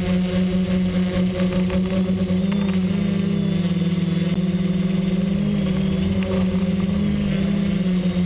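XAircraft X-650 V4 quadcopter's electric motors and propellers humming steadily in flight, heard from the camera on the airframe. The pitch wavers up and down as the motor speeds change while it manoeuvres.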